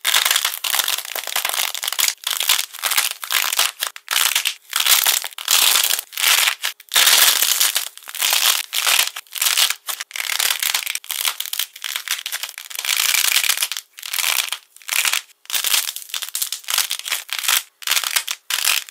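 Hands squeezing coated lumps of clay so the hardened shell on their surface cracks, giving dense, crisp crackling and crunching in many short irregular bursts.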